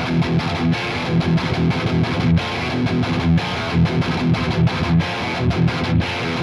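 Ibanez S320 electric guitar fitted with DiMarzio pickups, played through an amp as a fast, chugging rhythm riff with quick repeated low notes.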